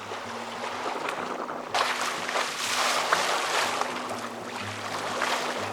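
Water rushing and splashing along the hull of a sailboat under way, swelling louder about two seconds in, over soft background music.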